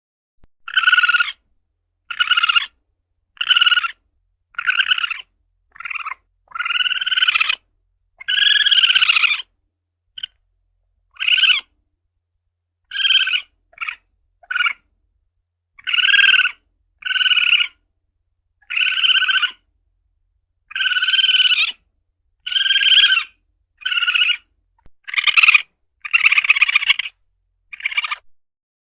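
Asian palm civet (luwak) calling: a long series of short, high calls about one a second, a few of them longer and drawn out, with silent gaps between.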